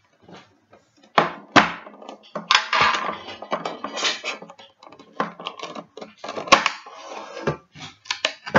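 Handling noise from a Pokémon card tin and its packaging: irregular rustling, clicks and knocks.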